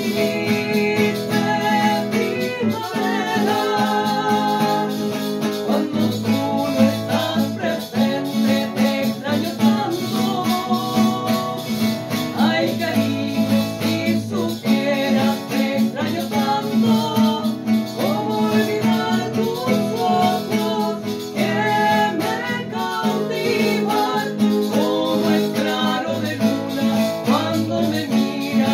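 Two women singing a Chilean cueca together, accompanied by two strummed classical guitars.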